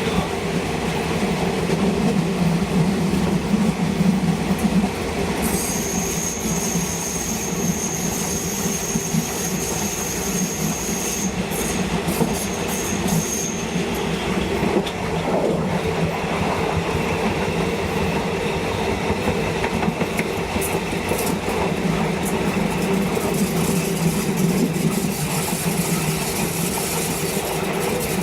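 Train running on rails, a steady rumble of wheels on track, with a thin high wheel squeal starting about five seconds in and lasting some eight seconds.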